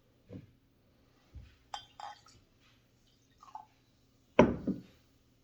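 Glassware and cups being handled while a soda sample is poured: a couple of sharp ringing clinks and several soft knocks, the loudest knock about four and a half seconds in.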